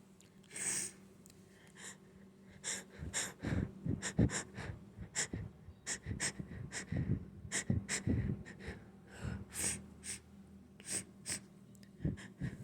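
A person with allergies holding back sneezes: many short, sharp gasps, sniffs and stifled sneezes in quick succession, then a pause and one more near the end.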